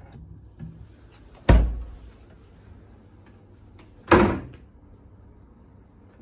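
Two door thumps about two and a half seconds apart, the first as the minibar fridge door is shut, the second as another cabinet door shuts.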